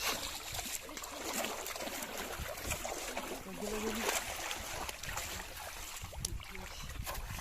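River water splashing and sloshing, with scattered small splashes, and faint voices in the middle.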